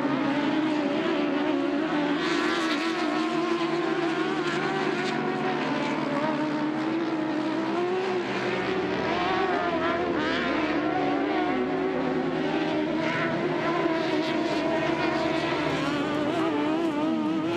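Several UTV race engines running hard together on a dirt track, their pitches wavering up and down as the cars accelerate and lift.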